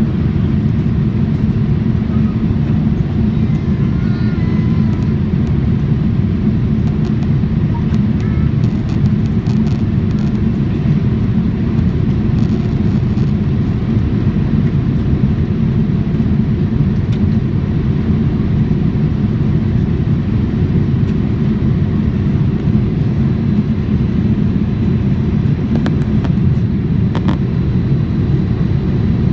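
Steady low rumble of jet engine and airflow noise inside an airliner cabin in flight.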